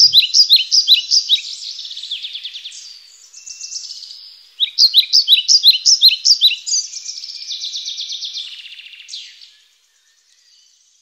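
Birdsong: quick runs of high, repeated chirps in two bursts with a short lull between them, fading out about nine and a half seconds in.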